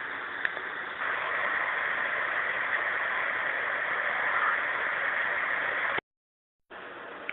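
Steady background hiss of a room recording made on an IC voice recorder. It gets louder about a second in, cuts out to dead silence for a moment near the end, then comes back quieter, with a couple of faint clicks.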